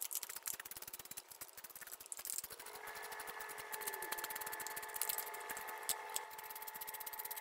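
Rapid clicking, then from about two and a half seconds in a small electric screwdriver's motor whining steadily, driving in the screws that hold the scooter's body panels.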